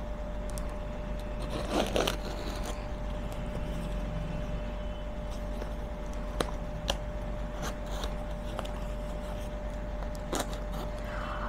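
Packaging being handled and opened: scattered rustling and a few short, sharp clicks, over a faint steady hum.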